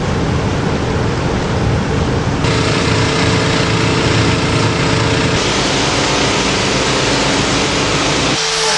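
Pump motors running steadily: a low engine-like hum under a broad hiss, shifting abruptly in character a few times.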